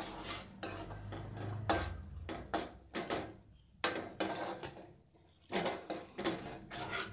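Metal spoon scraping and clinking against a metal kadai in repeated quick strokes, stirring a sauce.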